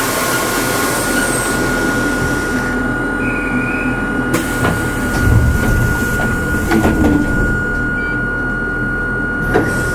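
Hakone Tozan Railway Moha 1-class electric railcar (cardan-drive rebuild) with a steady high hum from its equipment and a low rumble that swells about halfway through. A few sharp clicks and knocks come in the second half.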